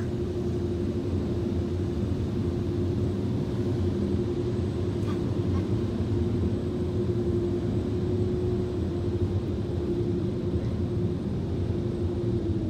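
Automatic car wash machinery running, heard from inside the car: a steady low rumble with a constant hum that starts to drop in pitch near the end.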